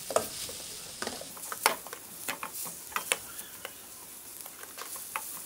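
Slotted metal spatula scraping and clicking irregularly against a stainless steel pan as chopped garlic and shallots sizzle in butter.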